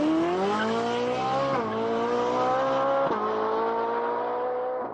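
Car engine revving up through the gears: its pitch climbs, then dips briefly at two shifts, about one and a half seconds in and about three seconds in, and holds steady in between.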